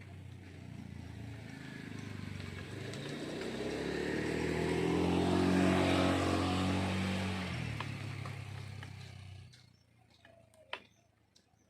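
A motor vehicle passing by: its engine grows louder, peaks about six seconds in, dips slightly in pitch as it goes past, and fades away by about nine and a half seconds.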